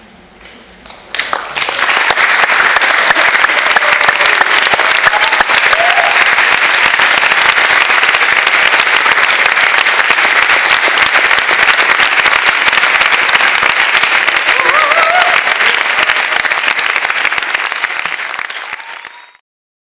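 Theatre audience applauding at the end of a performance, breaking out about a second and a half in and continuing steadily, with a couple of brief rising whoops. It tapers off near the end and then cuts off suddenly.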